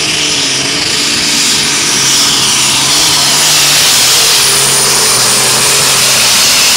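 Super stock pulling tractor's turbocharged engine running at full power as it drags the weight sled, with a steady high turbo whistle over a constant engine drone.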